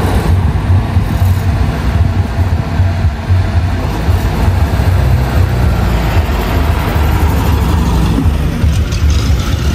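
Engines of old Soviet cars, a UAZ jeep and then a Lada sedan, running as they crawl past in a line of traffic: a steady low rumble.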